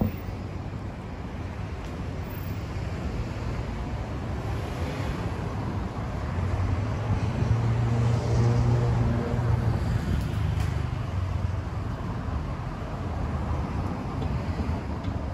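City street traffic, a steady rumble of passing vehicles. About halfway through, one vehicle's engine hum swells as it passes close, then fades.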